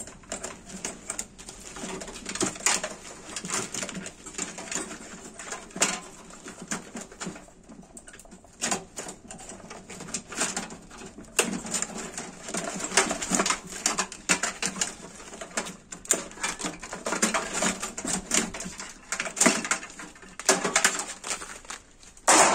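Clicking and rattling of cables and plastic connectors being tugged loose inside a steel PC case, in an irregular string of small knocks. One loud knock comes near the end.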